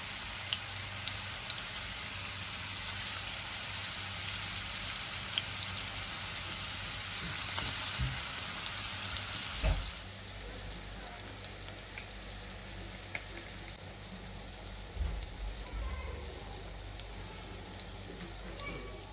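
Raw chicken-mince kababs shallow-frying in a little hot oil in a pan: a steady sizzle with small crackles and spits, dropping to a quieter sizzle about halfway through.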